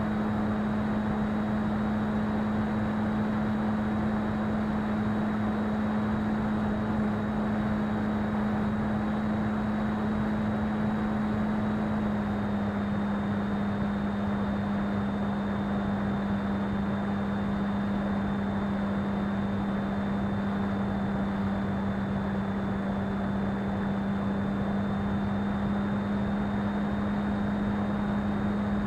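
Model plane's motor and propeller in flight, a steady hum heard from on board over a rush of wind; the pitch drops slightly about twelve seconds in.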